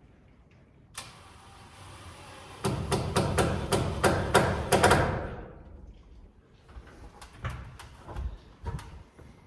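Hammer blows on wood framing: a quick run of about ten strikes, roughly four a second, then a few lighter knocks near the end.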